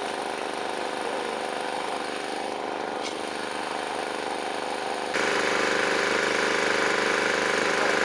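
An engine idling steadily, louder from about five seconds in.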